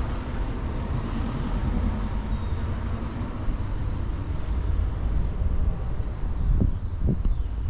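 Steady low outdoor rumble, heaviest in the deep bass, with a couple of short low thumps near the end.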